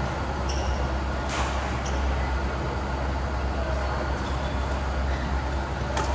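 Badminton rally: two sharp racket hits on the shuttlecock, about a second in and again near the end, with short high squeaks of court shoes in between. A steady low hum runs underneath.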